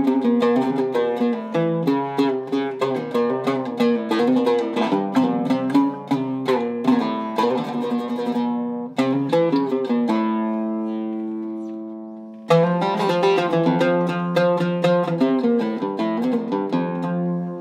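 Zaryab oud with a cedar soundboard and African sisam back, played solo: fast runs of plucked notes. About ten seconds in, one note is left ringing and fades for a couple of seconds, then the quick picking resumes.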